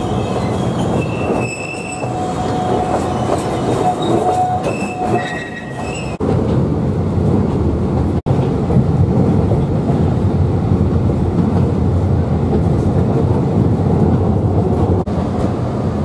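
Alishan Forest Railway narrow-gauge train running on a curve, its wheels squealing in several high steady tones over the rumble of the carriage for about the first six seconds. After that the squeal stops and only the steady rumble of the train on the track remains.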